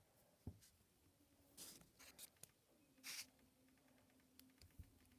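Near silence with a few faint rustles and small clicks of hands handling things close to the microphone, two soft rustles standing out about one and a half and three seconds in.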